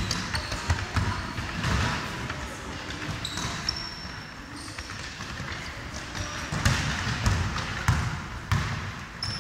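A basketball dribbled and bouncing on a wooden gym floor, with short high sneaker squeaks now and then and children's voices in the background.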